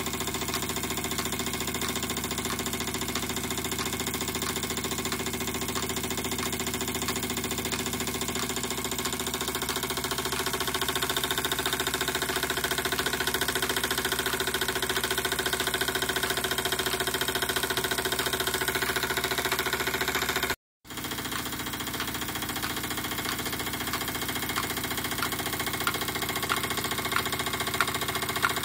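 Retrol SE-02 horizontal stationary model steam engine running steadily under load, driving a small piston water pump that circulates water through a copper water feature. The sound cuts out for an instant about two-thirds of the way through, and light ticks come through near the end.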